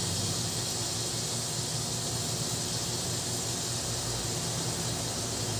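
Steady background hiss with a low hum underneath, the room's constant noise, unchanging throughout.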